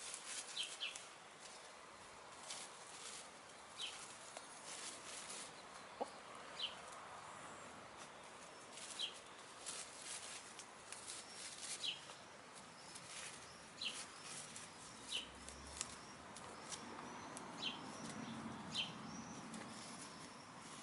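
Faint pecking, scratching and rustling of hens foraging in grass: scattered short clicks, with brief high chirps every second or two and a low soft murmur near the end.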